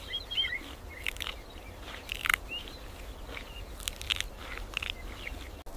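Crunchy food being bitten and chewed in short, irregular crunches, the loudest a little past two seconds in. A few faint bird chirps and a low, steady outdoor rumble lie underneath.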